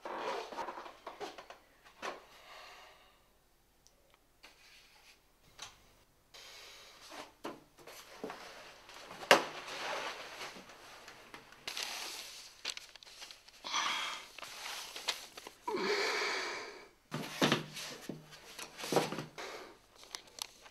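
Irregular rustling and shuffling with breathy, wheeze-like exhalations and a few sharp knocks, after a quiet stretch a few seconds in.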